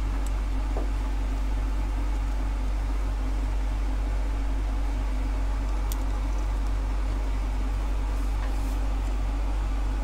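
Steady low hum with no change in level, with a few faint clicks near the start and about six seconds in as a carbon brush holder is handled and pushed into a washing machine's universal motor.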